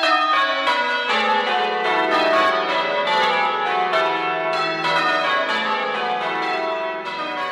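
A peal of bells struck in quick succession, each stroke adding a new pitch while the earlier ones keep ringing, building a dense overlapping clang.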